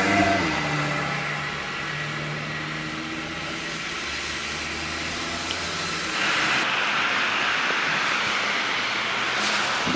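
A road vehicle's engine hums for about six seconds, its pitch slowly shifting. Then a louder, steady rushing hiss takes over, like wind on the microphone or tyre noise on a wet road.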